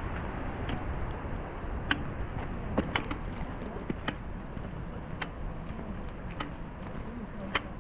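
Walking on a dirt coastal track: a sharp tick about every second, in an even walking rhythm, over a steady low rumble of wind on the microphone.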